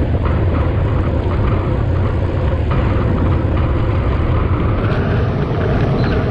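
Steady wind roar on the microphone of a camera mounted on a road bike riding at about 45 km/h.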